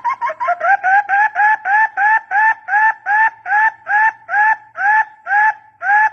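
Barbet call: a steady series of short hollow notes, each rising in pitch, repeated about two to three times a second after a quick jumble of notes at the start. A decoy call played to lure barbets.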